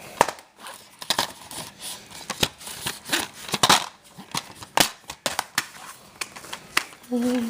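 Plastic shrink-wrap on a DVD case crackling and tearing as it is peeled off, with irregular sharp clicks and crinkles.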